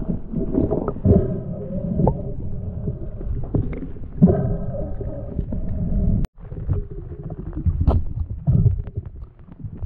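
Muffled underwater knocks, clicks and rubbing picked up through a camera's waterproof housing as speared fish are handled on a stringer. There are a few short stretches of low droning tones, and the sound drops out abruptly about six seconds in, then the knocking goes on.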